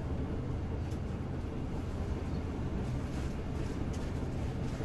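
Passenger train running at speed, heard from inside the carriage: a steady low rumble of wheels on track.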